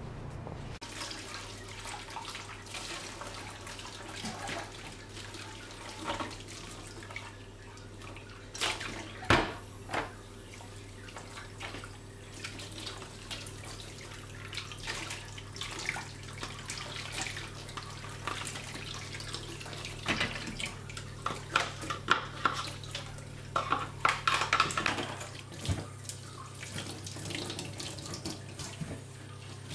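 Kitchen tap running into a stainless-steel sink while dishes are washed, over a low steady hum. Mugs and crockery clink now and then, with one sharp knock about a third of the way in and a quick run of clattering and scrubbing near the end.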